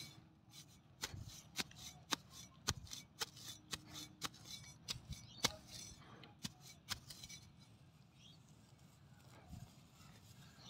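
Short crackles and snaps of a clump of grass being pulled and torn by hand, many in the first seven seconds and fewer after.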